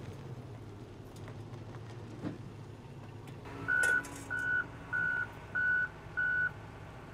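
Heavy equipment's engine running steadily with a low hum; about halfway through, its reversing alarm starts, giving five single-pitch beeps about two thirds of a second apart: the machine is backing up.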